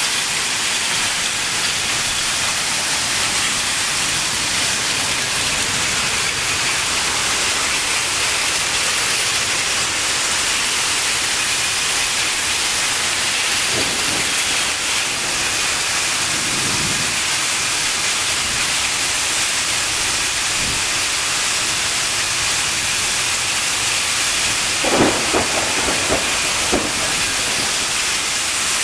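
Torrential rain and storm wind, one steady dense hiss without letup. A few short knocks stand out briefly near the end.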